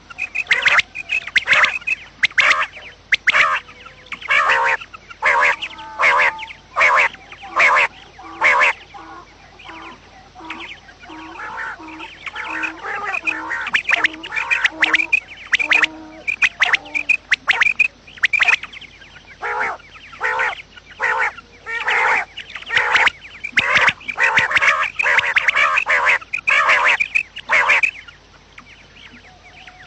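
Quail calling: runs of short, harsh call notes repeated in quick succession with brief pauses. Through the middle a soft, lower note repeats about twice a second underneath.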